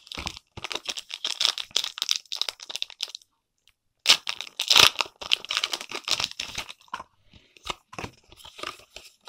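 Foil Pokémon booster pack wrapper being torn open and crinkled, in two spells of rustling with a short pause between, then a few lighter crinkles and clicks as the cards come out.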